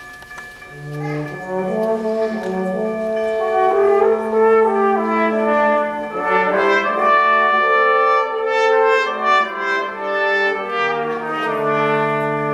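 High school symphonic band playing, with brass in front: held chords from French horns, trombones and trumpets. The band comes in quietly about a second in and swells to full volume.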